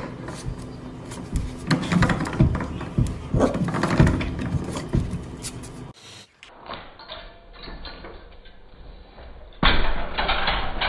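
Knocks and scratching at the bottom of a door, then, about three quarters of the way in, a metal baby gate rattling and clattering loudly as it is pushed over.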